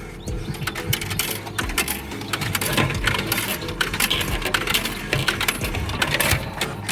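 A rapid, irregular run of small hard clicks and clinks, over a steady low hum.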